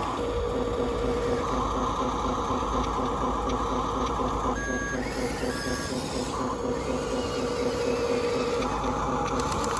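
Radio-controlled model vehicle running: a steady whir of its electric motor and gears, with two short electronic beeps around the middle.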